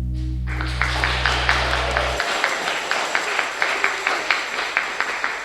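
A live band's final chord ringing out, its low bass note stopping about two seconds in, while an audience starts applauding about half a second in and keeps clapping.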